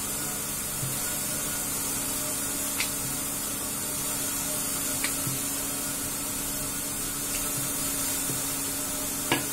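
Steady hiss of a gas stove burner on a high flame under an iron tawa, with a faint low hum and a few faint clicks.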